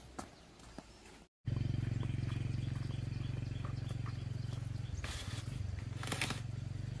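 A low, steady motor-like rumble starts about a second and a half in and runs on without change. Over it, a woven bamboo tray scrapes twice as it is pushed onto a bamboo drying rack.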